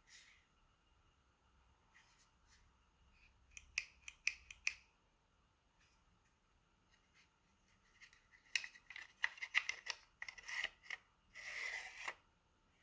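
Handling of a Fiskars SW73 Xtract pruning saw: a few sharp clicks, then a quick run of clicks and rubs, ending in a brief scrape near the end.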